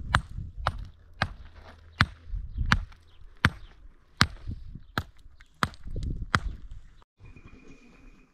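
A steady run of sharp strikes, about one every 0.7 seconds, like chopping or blows with a hand tool, stopping abruptly about seven seconds in. A quieter stretch with a faint steady high tone follows.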